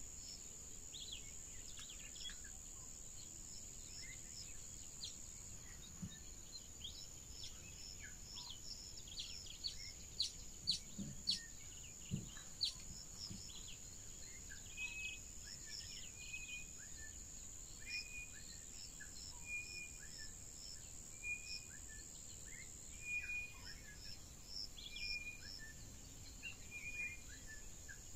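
Natural ambience of a steady high-pitched insect drone under many bird calls and chirps. In the second half one bird repeats a short chirp about once a second, and a few sharp clicks stand out a little past the middle.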